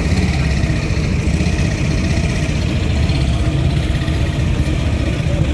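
Vintage military truck engines running at low revs, a steady deep rumble, as a canvas-covered army lorry rolls slowly past.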